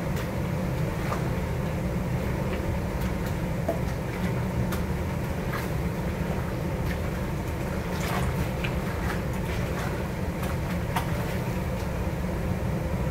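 Steady low rumble of running kitchen equipment, with a few faint ticks and taps scattered through it.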